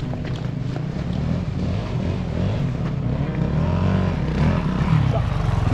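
Dirt bike engine running, its pitch rising and falling as the throttle is worked midway through.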